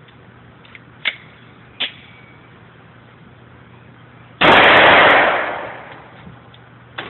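Glock 32C pistol in .357 SIG firing a quick burst of shots, loud enough to overload the recording, ringing out over about a second; the owner puts the extra shots down to the pistol doubletapping on a single trigger pull. Fainter single cracks come earlier and near the end.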